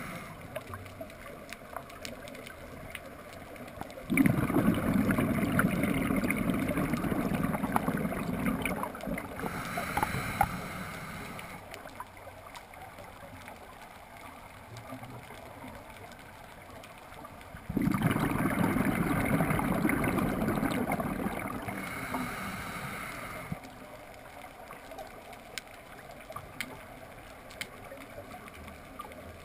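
Scuba diver's regulator heard underwater: two long rushes of exhaled bubbles, each starting suddenly and fading over about five seconds, with quieter stretches between breaths.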